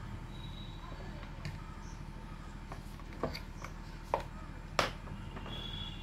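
A few sharp clicks and knocks as an inverter circuit board is handled and shifted on a wooden bench, the loudest near the end, over a low steady hum.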